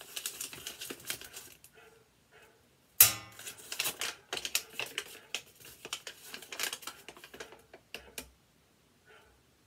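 Paper and small objects being handled and sorted: irregular rustling, crinkling and light clicks, with a sharp knock about three seconds in.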